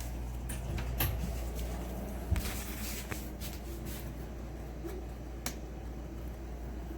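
A few sharp clicks and light knocks from a hand-held rechargeable magnetic work light being handled and switched, over a steady low hum.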